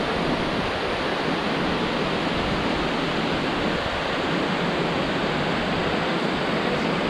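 Steady rushing of water from a row of waterfalls pouring into a wide glacial river.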